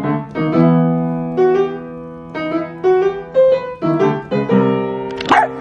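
Piano music: a slow run of held chords, each struck and left to fade before the next.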